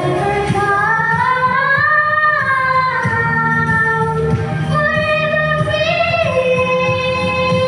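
Voices singing a slow melody in long held notes that glide up and down between pitches, over a low steady sound underneath.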